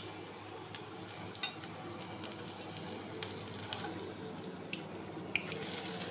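Pakoras deep-frying in hot oil in a wok: a steady sizzle with scattered pops and crackles, getting louder near the end.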